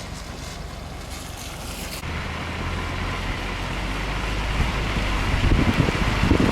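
Car driving on a rain-wet road: a steady hiss of tyres on water and a low hum that grow louder as it goes, with wind buffeting the microphone near the end.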